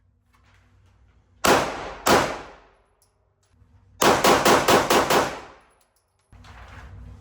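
Pistol shots on an indoor firing range, each with a short echoing tail: two shots about half a second apart, then a quick string of about six.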